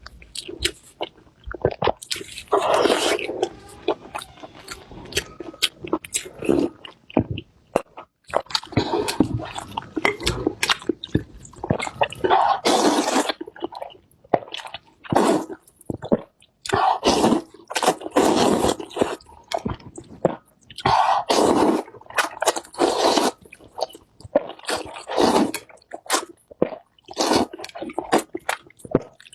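Close-miked eating sounds: repeated bursts of biting, chewing and crunching, with sharp clicks, in irregular clusters about a second long separated by short pauses.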